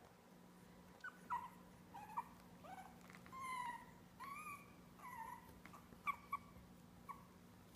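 Young puggle puppies whimpering and squeaking, about ten short, high-pitched cries, some rising and some falling in pitch.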